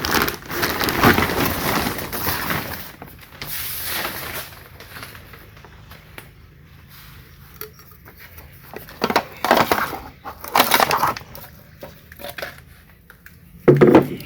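Packaging being pulled and torn off a delivered engine: crinkling, tearing noises in irregular bursts, the longest in the first few seconds and shorter ones later, with a dull knock near the end.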